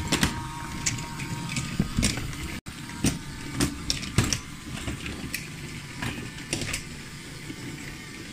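Small electric motors of battery-powered BRIO toy trains whirring steadily, with scattered clacks and knocks of wooden trains and track pieces being handled.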